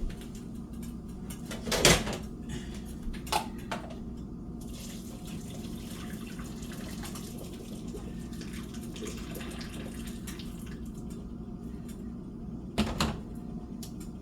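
Water running into a kitchen sink under a steady low hum, with a few clattering knocks of pots or utensils, the loudest about two seconds in and another near the end.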